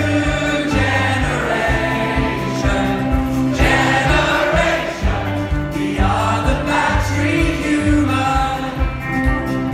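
Live indie-folk band playing, with acoustic guitars, violins and drum kit under several voices singing together.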